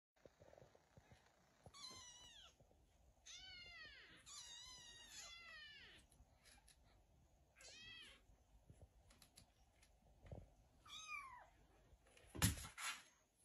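Small kitten mewing, faint high-pitched mews each rising then falling in pitch, about seven spread out with gaps between them. A couple of soft thumps come near the end.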